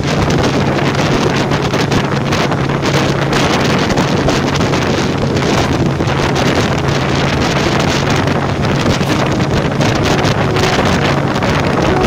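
Old Evinrude Fastwin twin-cylinder two-stroke outboard running at a steady pitch, pushing an inflatable dinghy along, with heavy wind noise buffeting the microphone.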